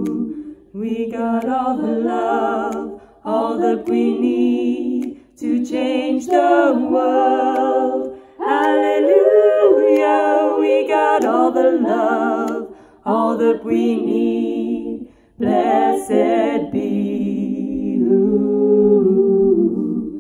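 A cappella female singing in layered harmony parts, in phrases a few seconds long separated by short breaks.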